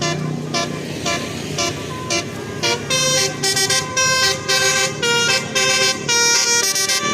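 Bus telolet horn, a multi-tone musical air horn, playing scattered short notes over a low rumble, then a quick run of stepped notes like a little tune from about three seconds in.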